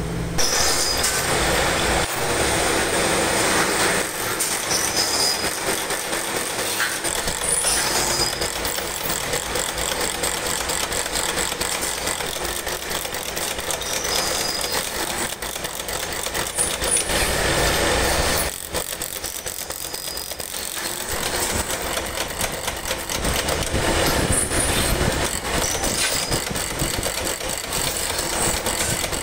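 Workshop machinery running with a dense, rapid clatter and short high squeaks every few seconds, during the making of water taps.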